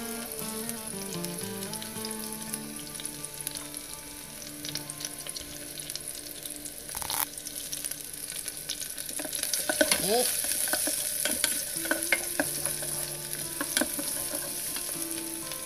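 Shallots, curry leaves and chillies sizzling in hot oil in the nonstick inner pot of a Russell Taylors electric pressure cooker, a steady hiss at the base of the curry paste. A wooden spatula stirs them, its scrapes and taps on the pot coming thick and loud in the second half.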